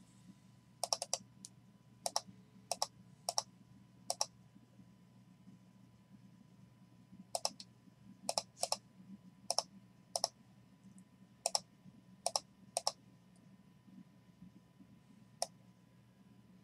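Sharp clicks of someone working a computer at a desk, some single and some in quick runs of two or three, scattered unevenly with a pause of a few seconds in the middle, over a faint low steady hum.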